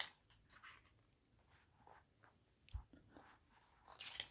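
Quiet handling of a glossy photo book: faint paper rustles and small clicks as pages are turned, with a soft thump a little under three seconds in.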